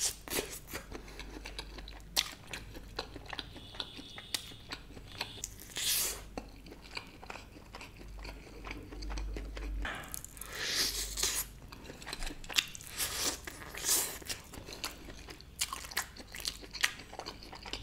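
A man chewing and biting into a KFC Smoky Red chicken leg, with wet mouth clicks throughout and a few louder bites spaced through the stretch.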